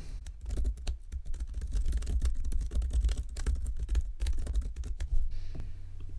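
Typing on a computer keyboard: quick, irregular keystrokes for about five seconds, then a single click near the end, over a low steady hum.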